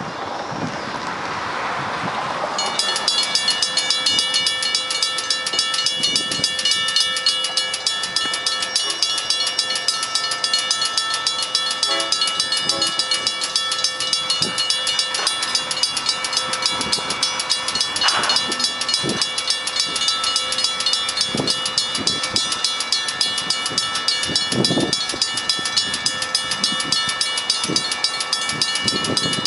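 Safetran railroad crossing bell starting up about three seconds in and then ringing fast and steadily, the crossing warning that a train is approaching.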